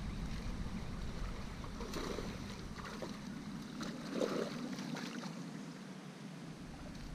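Wind rumbling on the microphone while a hooked bass is reeled to the bank, splashing at the surface, with the loudest splash about four seconds in.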